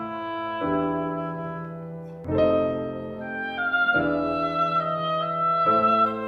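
Slow instrumental background music: sustained held chords that change about every one and a half to two seconds.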